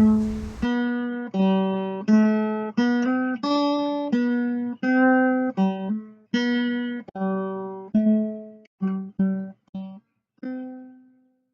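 Guitar played one note at a time: a slow melody of single plucked notes that thins out toward the end, with the last note left ringing.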